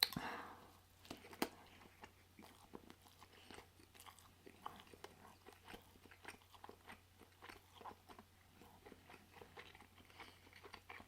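A person chewing a soft, greasy carnitas pork sandwich up close to the microphone: a stream of small wet smacks and mouth clicks, with a louder bite at the very start and a sharp click about a second and a half in.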